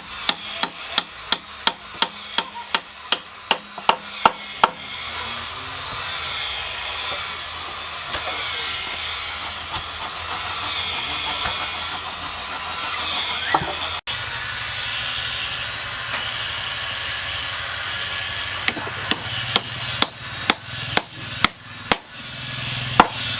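Repeated hammer blows on wood, about three a second, for roughly five seconds. A steady hiss with a low hum runs through the middle, then the hammering starts again near the end.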